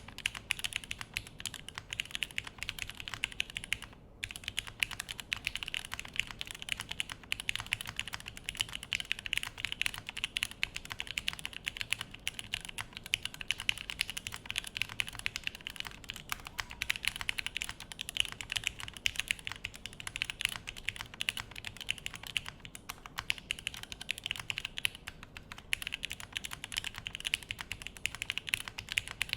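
Continuous fast typing on a Crin FRL mechanical keyboard: a dense stream of keystroke clacks, with a brief pause about four seconds in.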